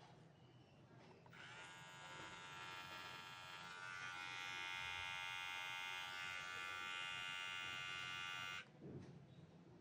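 Xiaomi Beard Trimmer 2 cordless beard trimmer switched on about a second in, its motor and blades running with a steady buzz that gets louder a few seconds in, then switched off near the end.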